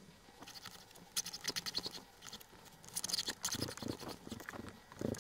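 Rasping scrape of a 3D-printed plastic fan-blade piece rubbed back and forth on a flat metal hand file, in short runs of quick strokes starting about a second in, as its edge is filed flat so the pieces will stack.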